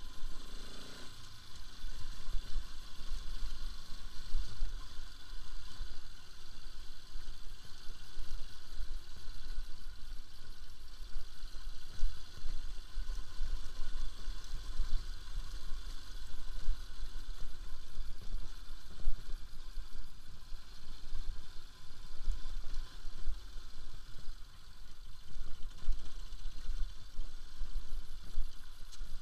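Bajaj Pulsar RS200 motorcycle ridden over a rough, stony dirt track: its single-cylinder engine runs steadily under uneven low jolts and rattles from the bumpy surface.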